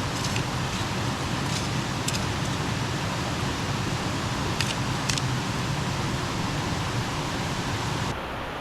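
Steady rush of river water, with a few short, sharp high ticks over it. Near the end the high hiss drops away abruptly.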